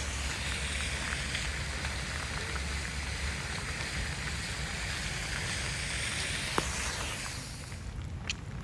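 Steady rush of typhoon wind and rain, with a low rumble underneath and a single sharp tick about six and a half seconds in.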